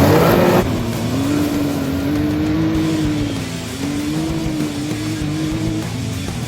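Side-by-side UTV engine revving up hard as it pulls off, then holding at high revs with the pitch wavering as the throttle varies. A loud rush of noise comes with the launch in the first half second.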